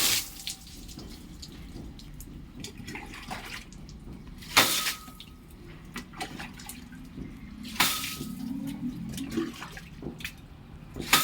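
Water running and splashing inside a solar water heater tank as it is rinsed out, with a steady low rush and sharp splashes about every three to four seconds.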